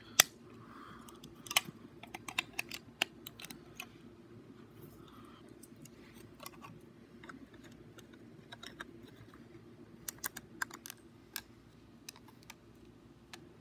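Plastic Lego bricks clicking and clattering as they are handled and pressed together. The sharp irregular clicks are loudest near the start, with a cluster about ten seconds in, over a faint steady hum.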